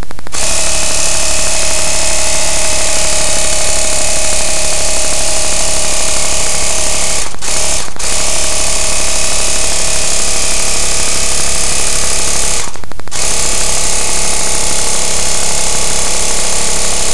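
Small 12-volt battery-powered air compressor built into a homemade pneumatic gun, running steadily as it charges the gun's air tank. The sound drops out briefly twice around seven to eight seconds in and once more around thirteen seconds.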